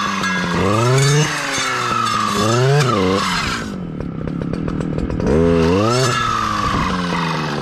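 Stihl two-stroke clearing saw (brush cutter) with a saw blade, revving up and down in short bursts as it cuts through saplings. It drops to idle for about a second and a half in the middle, then revs up again.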